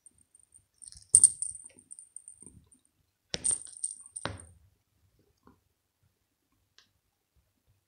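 Small bell inside a plush toy ball jingling in two short bursts, about a second in and about three and a half seconds in, with a few soft knocks as the ball swings and bumps.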